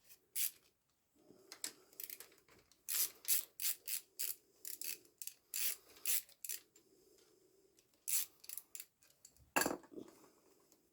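Ratchet wrench clicking in short runs as 8 mm bolts are loosened on a motorcycle's clutch, with a louder metal knock near the end.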